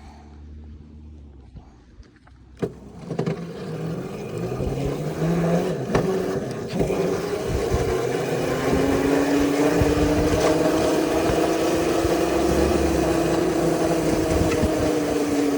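Bicycle riding off and picking up speed, starting about three seconds in: steady tire and wind noise with a hum that slowly rises and falls in pitch. The front is a knobby mountain-bike tire.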